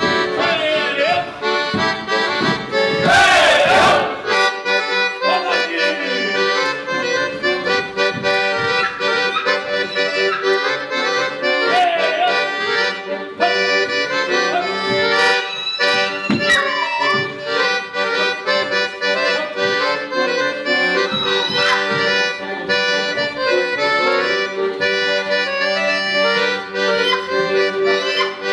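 Lively Polish folk dance music for the Limanowski dances, led by accordion, playing throughout, with a short shout from the dancers about three seconds in.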